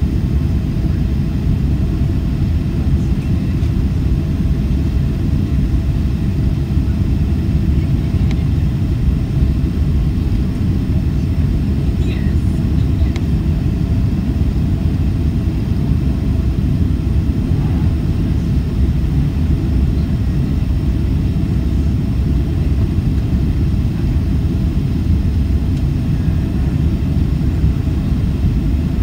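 Steady low rumble of a Boeing 767-300ER heard inside the cabin on final approach, engine and airflow noise.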